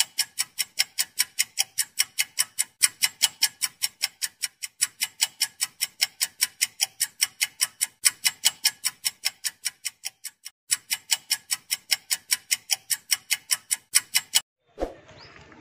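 Clock ticking at a steady pace of about four ticks a second, with a brief break about ten and a half seconds in; it stops about a second before the end.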